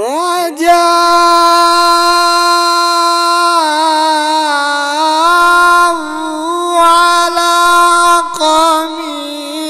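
A qari reciting the Quran in the melodic tajweed style: the voice swoops up into a long, high held note for about three seconds, then moves through ornamented turns with short breaks for breath.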